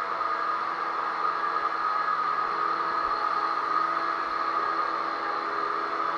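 Electric drywall sander running steadily: a constant motor whir over an even hiss.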